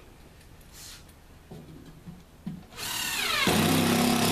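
Cordless drill driving a coarse drywall screw through drywall into a wood backer strip, after a couple of light knocks. The drill starts about three seconds in, its whine falls in pitch as the screw bites and it then runs steadily under load.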